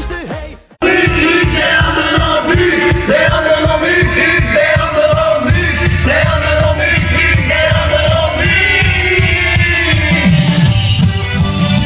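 Loud carnival parade music with a singing voice over a steady beat; it fades out briefly just under a second in, then comes straight back in.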